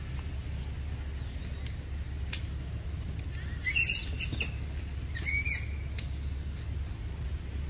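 Two short, high chirping animal calls about a second and a half apart, each bending in pitch, over a steady low rumble, with a single click a little before them.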